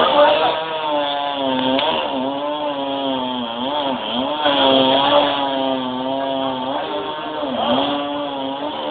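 Chainsaw running at high speed while cutting wood, its pitch sagging briefly a few times as it bites in and then picking back up.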